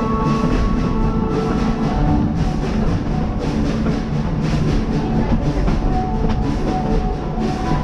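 A narrow-gauge steam train running, heard from aboard: steady running noise with a rhythmic beat about twice a second, and faint steady squealing tones.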